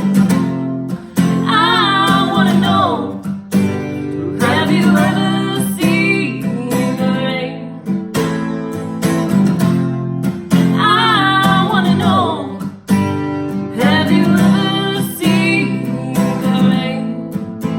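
Acoustic guitar strummed steadily in a song, with a singer's voice coming in for four sung phrases over it.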